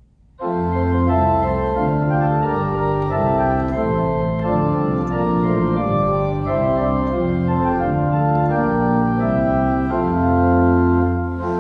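Church organ playing a hymn introduction in sustained, held chords that change about once a second. It starts about half a second in, after a moment of quiet.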